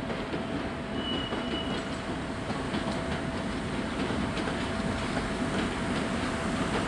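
An M62 diesel locomotive, with a two-stroke V12 engine, hauls a freight train past, its engine running steadily under the clatter of wheels over rail joints. There is a brief high wheel squeal about a second in.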